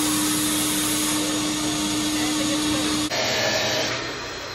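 Abrasive sandblast cabinet running: a loud, even hiss of the air blast with a steady hum. It cuts off abruptly about three seconds in, leaving fainter workshop noise.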